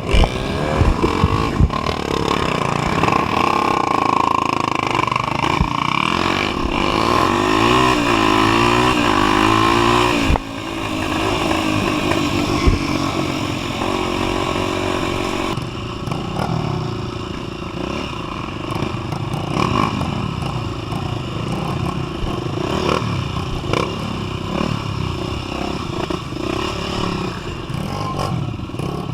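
Trail motorcycle engine running on the move, its pitch rising and falling with repeated throttle changes, with a few sharp knocks and clatter over rough ground.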